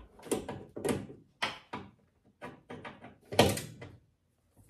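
A quick series of sharp knocks and clunks, the loudest a little past three seconds in, as a car headlight assembly is worked back into place.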